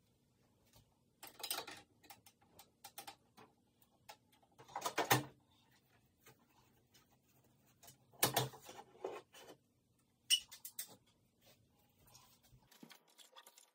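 About four short bursts of clicking and rattling, loudest about five and eight seconds in: a hand tool and loose screws being handled as the shipping screws are taken out from inside a Bambu Lab P1S 3D printer.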